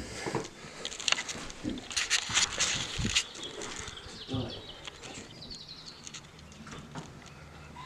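Footsteps crunching and clicking on a debris-strewn floor, in irregular bursts, with a few faint bird chirps about halfway through.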